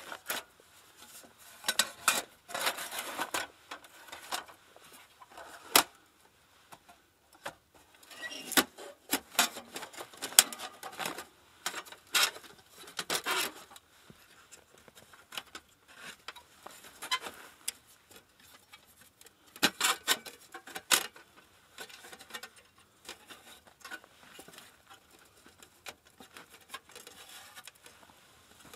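Irregular knocks, clicks and rustling from camping gear being handled, in scattered clusters with quiet gaps between.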